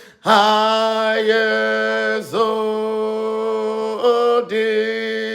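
A man singing a worship chant without accompaniment. He holds long sustained notes, sliding up into each one, with short breaks about two and four seconds in.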